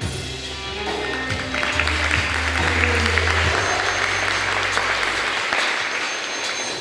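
Audience applause swelling up about a second and a half in and easing off near the end, over the performance music with steady low bass notes.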